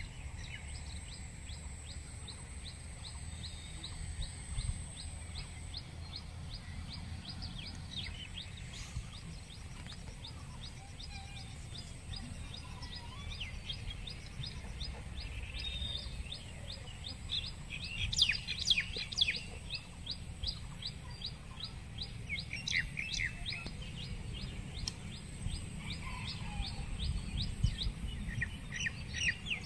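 Birds calling: one repeats a short, high note about two or three times a second, with louder bursts of chirping about eighteen and twenty-three seconds in, over a low steady rumble.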